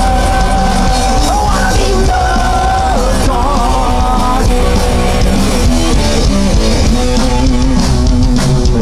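Live punk rock band playing loudly: bass guitar and drums with a singer's voice over them.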